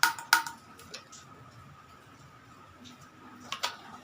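Sharp clicks with a short ringing tone from the spark igniter of a homemade Yakult-bottle boga (alcohol cannon): two near the start and two more shortly before the end, with no bang.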